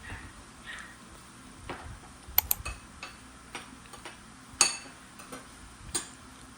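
Scattered light taps and clinks of dishes and utensils being handled. The loudest are a quick double clink about two and a half seconds in and a ringing clink about four and a half seconds in.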